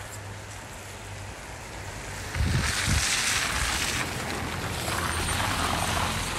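Wind gusting on the microphone: a rushing noise that surges about two and a half seconds in with a couple of low buffeting thumps, eases, then swells again near the end.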